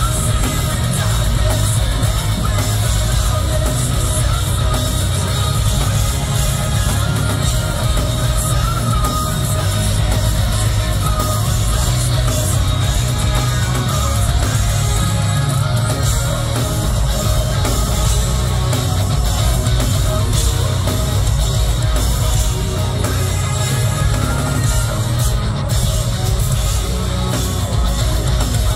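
Rock band playing live, heard from the crowd: distorted electric guitars, bass and drums, loud and unbroken, with a heavy low end.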